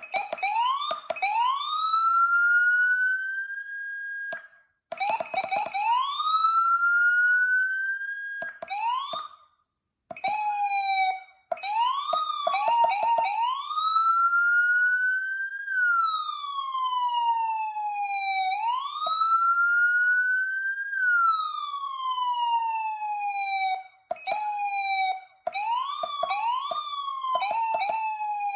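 Federal Signal SmartSiren Platinum SSP3000B electronic siren worked by hand in manual mode. Its tone winds up in pitch and is cut off, first in a few longer rises and then in short chirps. Near the middle come two long wind-ups, each followed by a slow coast-down in pitch, copying a mechanical siren's wail.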